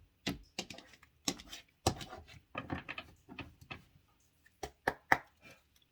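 A tarot deck being shuffled by hand: a run of irregular card slaps and snaps, with a short pause about two-thirds of the way through.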